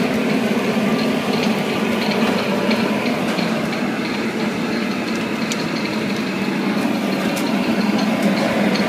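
Steady mechanical hum with a light ticking repeating about twice a second.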